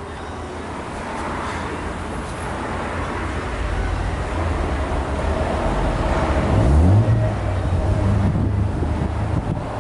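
Motor vehicle engine running, growing louder over the first seven seconds, with a short rise in pitch about seven seconds in.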